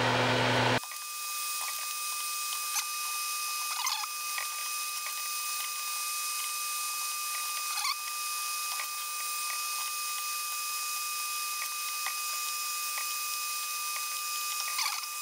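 Steady hiss with a faint high whine, after the louder room noise drops away sharply about a second in. Over it come scattered small clicks and a few brief squeaks from hand tools working the point-to-point wiring in a tube guitar amplifier chassis.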